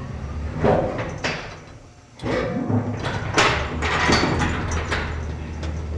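Old passenger elevator in operation: clunks and sliding of its door and gate, then from about two seconds in the car running with a low steady hum, with knocks and rattles over it.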